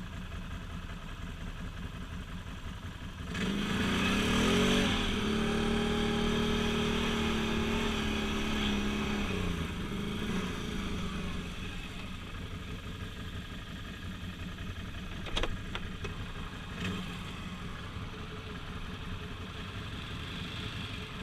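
ATV engine idling, then revving up about three seconds in and held at steady high revs for several seconds before dropping back to idle. Two sharp knocks follow later.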